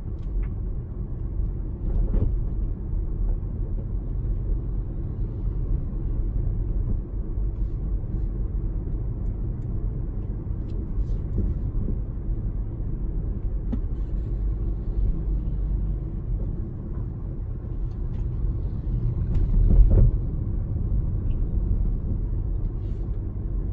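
A car driving along a road: a steady low rumble of engine and tyres, with a few light knocks and a brief swell about three-quarters of the way through.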